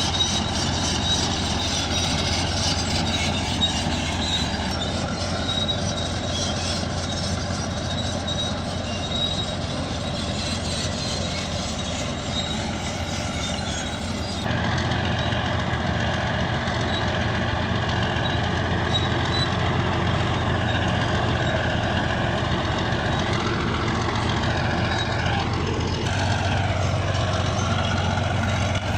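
Bulldozer's diesel engine running with its steel tracks clanking and squealing, a steady heavy machine noise that changes abruptly about halfway through and again near the end.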